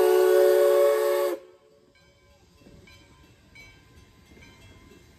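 Steam whistle of Baldwin 0-6-0 locomotive No. 58 blowing loud and steady, several notes sounding together as a chord, then cutting off suddenly about a second and a half in. After it only faint background sound remains.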